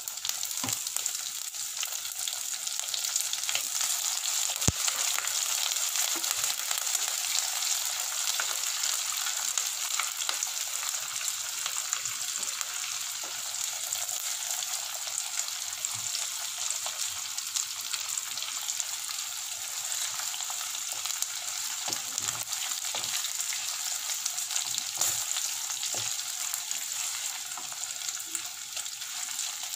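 Oil sizzling steadily in a clay pot as curry leaves, green chillies, dried red chillies and chana dal fry in it, with scattered sharp ticks as a wooden spatula stirs the mix. It is the tempering stage, frying the spices and dal in hot oil.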